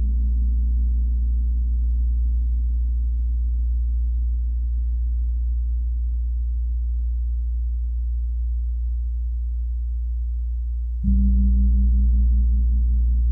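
Large Chau and Feng gongs ringing in a long, low, deep drone with a slow pulsing beat, gradually fading. About eleven seconds in, a mallet stroke brings the ringing back up louder.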